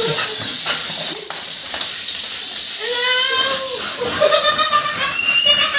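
Water hissing from a hose spray nozzle while a dog is washed, with a dog whining in several high, drawn-out cries from about three seconds in.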